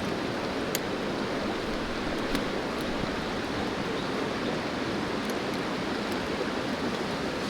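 Steady rushing of a river's flowing water, with a few faint clicks over it.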